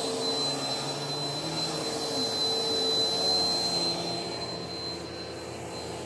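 Upright bagless vacuum cleaner running on carpet: a steady motor drone with a thin high whine on top, easing a little in loudness after about four seconds.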